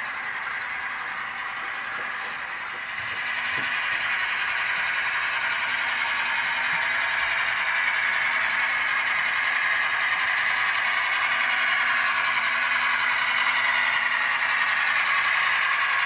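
HO scale model freight train rolling along the layout track, led by a GP39-2 diesel locomotive, a steady running noise that grows louder about three seconds in as the train comes close.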